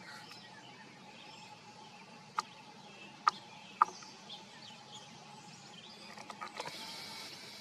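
Outdoor background with small birds chirping, broken by three sharp clicks in the middle and a brief rustling near the end.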